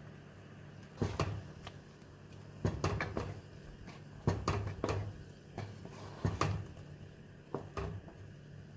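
Wooden spoon stirring mulberry preserve in a metal pot, with repeated knocks and scrapes against the pot's side and base, in clusters from about a second in until near the end, over a low steady hum.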